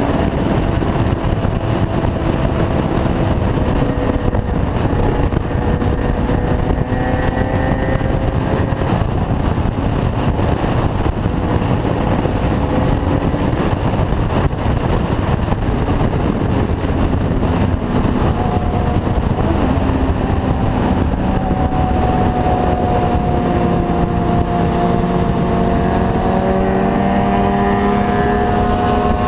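Sport motorcycle engines running at highway speed, heard from a bike-mounted camera with a steady rush of wind and road noise. The engine note rises slowly in pitch near the end as the riders speed up.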